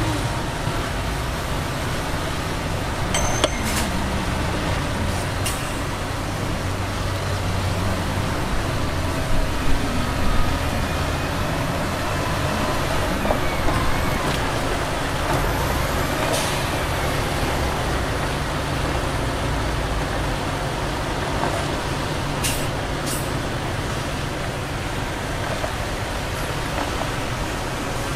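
Heavy diesel dump truck and earthmoving machinery running with a steady low engine drone. A few sharp knocks and clanks come through, with a louder stretch about a third of the way in.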